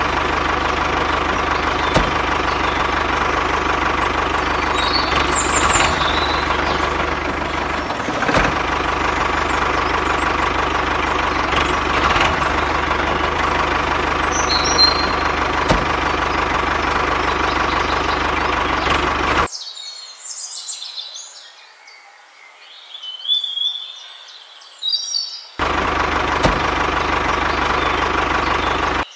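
Tractor engine sound running steadily with a faint held tone. It cuts off suddenly about two-thirds of the way in, leaving birds chirping, and starts again a few seconds before the end.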